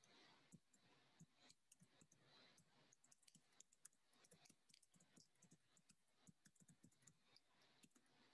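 Near silence with faint, irregular clicking of a computer keyboard being typed on.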